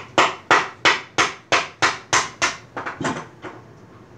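Rapid, evenly spaced knocks of a tool striking a finned metal heat sink glued to a circuit board, about three a second, growing weaker after about three seconds: the heat sink is being knocked loose from its heavy adhesive.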